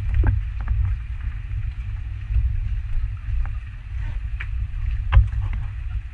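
Steady low rumble aboard a small wooden outrigger fishing boat at sea, with a few scattered knocks and taps as a handline is hauled in over the side.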